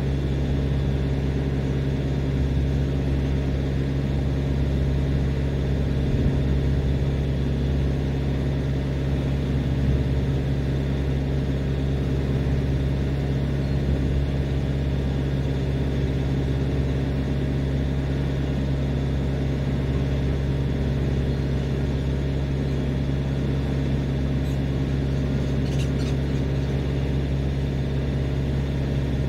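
Diesel engine on a parked refrigerated tractor-trailer idling steadily, an unchanging low hum. A couple of faint clicks come near the end.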